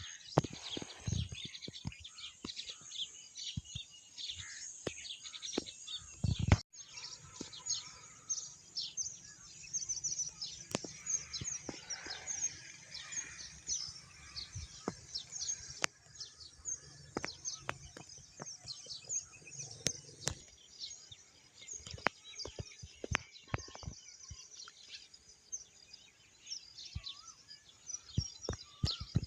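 Dense chorus of many small birds chirping, with rapid, short, high-pitched downward-sweeping notes overlapping throughout. Scattered sharp clicks and a low thump come about six seconds in, followed by an abrupt break.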